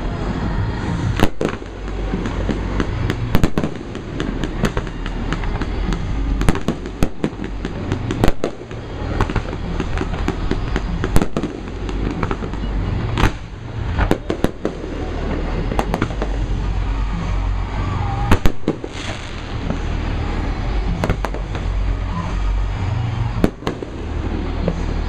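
Fireworks display: a steady run of booming shell bursts and sharp cracks at irregular intervals, over a continuous low rumble and echo.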